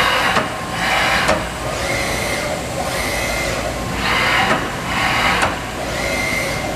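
2001 Haas Mini Lathe CNC turning center running under power: pairs of short hissing machine strokes, near the start and again about four seconds in, alternating with a steady high whine.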